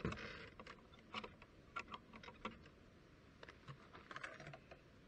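A wooden hut door knocks shut with a low thump, followed by scattered light clicks and rustles as a small shoulder bag is handled.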